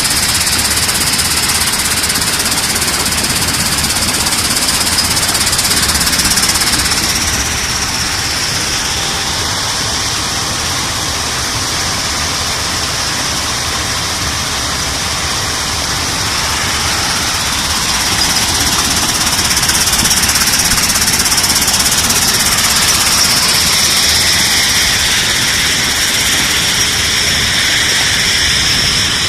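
LZZG double-cyclone sand recycling machine running: a steady, loud mechanical din with a high whine held throughout, swelling slightly about two-thirds of the way in.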